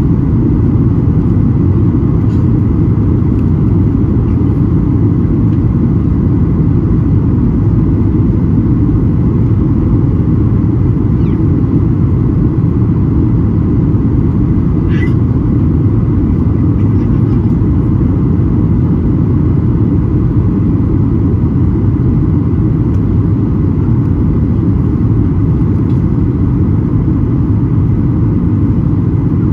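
Steady low roar inside the cabin of a Boeing 737-800 descending on approach: its CFM56-7B jet engines and the rush of air over the fuselage. A brief faint rising chirp sounds about halfway through.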